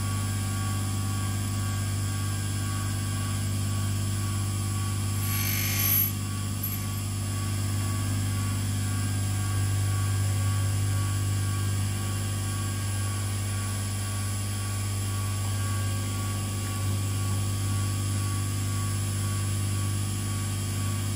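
Union tool and cutter grinder running, its motor and grinding wheel giving a steady hum with a few faint steady higher tones. A brief hiss comes about five and a half seconds in.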